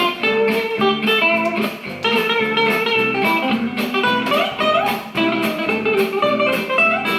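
Guitar music with plucked notes on a steady beat, played back through a portable Bluetooth speaker.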